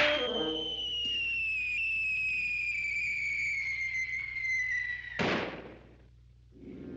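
Cartoon sound effects: a long whistle that falls slowly in pitch for about five seconds, cut off by a loud bang, then a moment of near silence.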